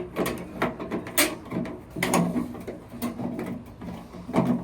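Sheet-metal square downspout being handled and worked by hand: a quick, irregular series of metallic knocks, clicks and rattles.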